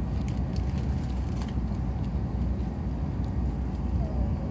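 Steady low rumble inside a passenger train carriage.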